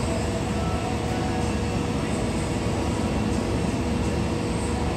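Jet airliner engines running steadily: an even rumble with a faint steady hum.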